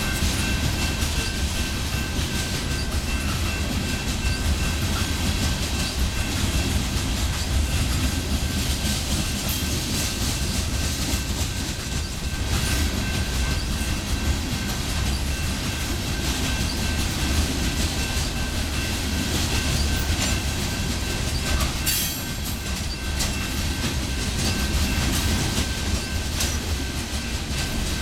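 Loaded coal hopper cars of a freight train rolling past, a steady rumble with wheels clacking over the rail joints. A faint steady high tone runs throughout.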